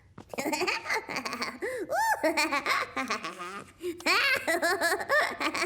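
A cartoon character laughing in a high, childlike voice, runs of giggles with a short break about four seconds in.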